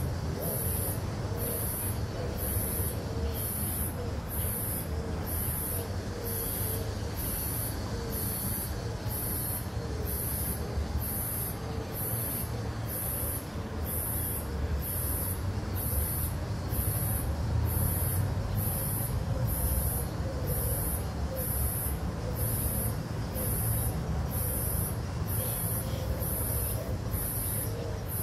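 Steady low rumble of distant street traffic, with a high-pitched pulsing call repeating evenly about once a second over it.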